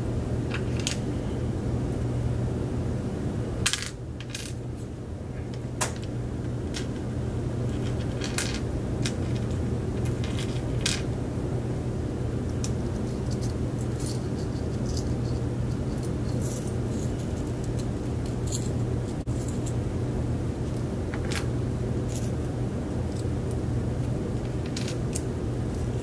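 Brass discs and spacers of an Abloy Disklock clicking and clinking as they are hooked out of the lock core with a pick and dropped into a tray. Scattered light clicks sound over a steady low hum.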